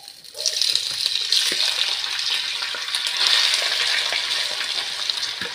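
Diced vinegar-marinated pork and onion sizzling loudly as it hits hot oil in a clay cazuela, starting about half a second in and holding steady, with a few light knocks of a spoon pushing the meat out of a plastic bowl.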